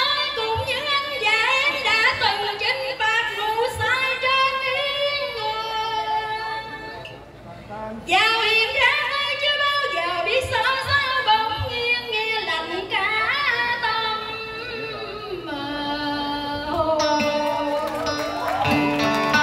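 A woman singing a cải lương vocal line in an ornamented, gliding style over live instrumental accompaniment. There is a brief dip about seven seconds in, and the instruments come forward near the end.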